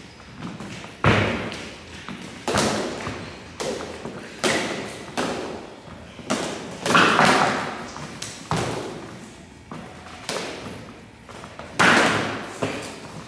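Sharp, echoing knocks of toy swords striking one another during a choreographed stage fight, with footfalls on a wooden gym floor. About nine separate hits come irregularly, a second or two apart, each ringing briefly in a large hall.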